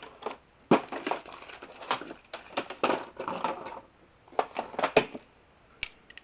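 Hand tools being rummaged through in a container: irregular clinks, clicks and rustling as pieces are picked up and moved around, pausing briefly in the middle and thinning out near the end.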